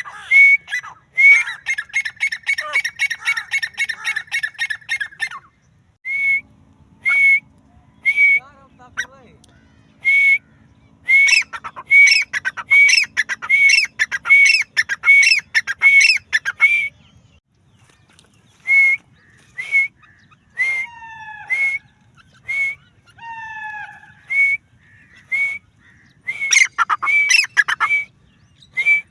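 Francolin (teetar) calling: loud, harsh calls repeated over and over, packed into fast runs in two long spells, with single calls spaced out between them.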